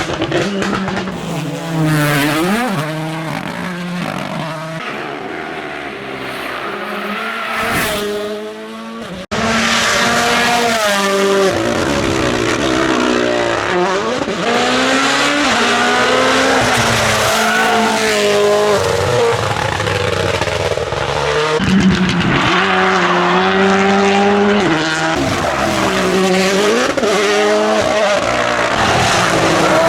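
Rally car engines revving hard and changing gear, the pitch repeatedly climbing and dropping as cars accelerate and brake through a special stage. The sound cuts abruptly to another car about nine seconds in.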